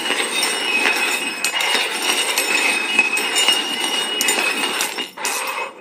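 Cups being shuffled around on a hard surface: steady scraping with ringing clinks, stopping shortly before the end.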